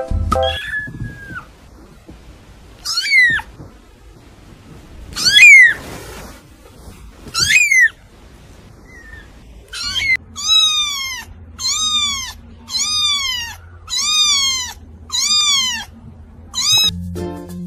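Kittens mewing: three separate high meows that rise and then fall, the middle one loudest, followed by a run of about eight short mews roughly one a second over a low steady hum.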